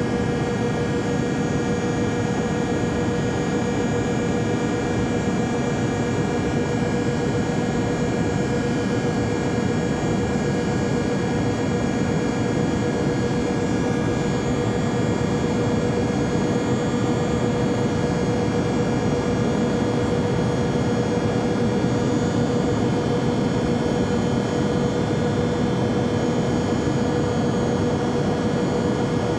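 Steady airplane cabin noise in flight: an even rushing drone with a constant hum tone running through it, unchanging throughout.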